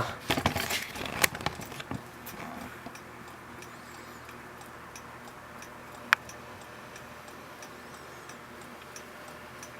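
Handling noise: a quick cluster of sharp clicks and knocks in the first two seconds, then quiet room tone broken by one sharp tick about six seconds in.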